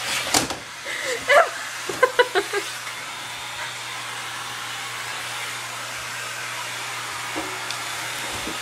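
Handheld vacuum cleaner running steadily, a constant airy hiss over a low motor hum, as its nozzle is worked over a window to suck up flies.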